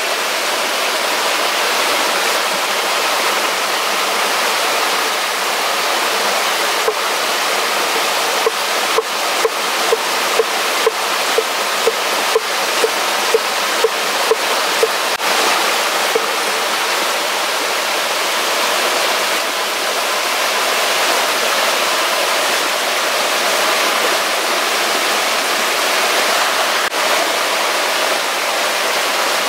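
Steady rush of running water from a stream. From about 8 seconds in, a large cleaver-style knife chops through cabbage onto a wooden board, about two chops a second for some seven seconds.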